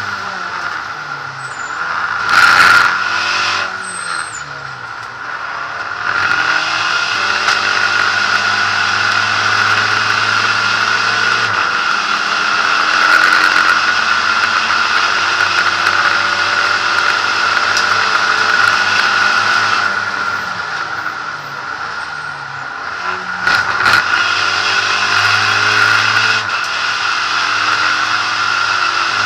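SEAT Ibiza SC Trophy race car's engine heard from inside the cockpit at racing speed. The engine note steps down twice, under braking into corners, and climbs again under acceleration, over steady wind and road noise. There is a sudden loud thump about two and a half seconds in.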